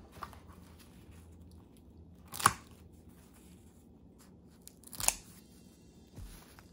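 Kitchen scissors cutting through seaweed-wrapped glass-noodle rolls twice, each snip a short, sharp crunch of the dry nori, about two and a half seconds apart.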